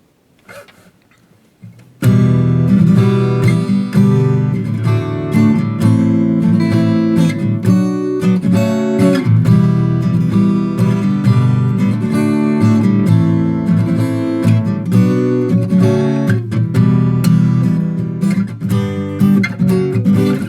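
Acoustic guitar strummed in a steady rhythm as an instrumental song introduction, starting abruptly about two seconds in after a brief near-quiet moment.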